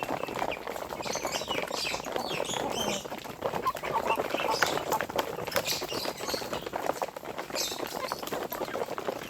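Flock of poultry calling, with many short high chirps and peeps over a busy scatter of scratching and pecking clicks.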